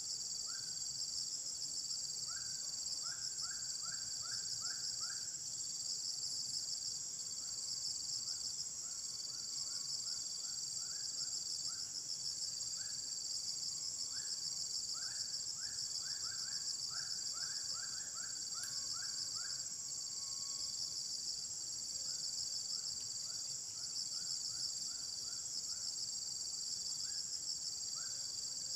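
Dense insect chorus: a steady high buzz with a fast pulsing texture. Over it come several runs of short rising call notes, a few per second.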